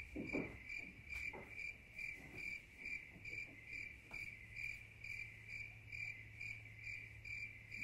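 Cricket chirping at an even pace, about three chirps a second, used as a comic 'awkward silence' sound effect that cuts in and out with the edit. Faint rustling of fabric lies beneath it.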